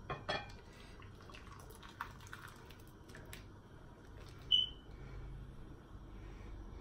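Thick chicken and chana daal poured from a saucepan into a dish: soft wet plops and drips with light clicks in the first few seconds, and one brief high squeak about four and a half seconds in.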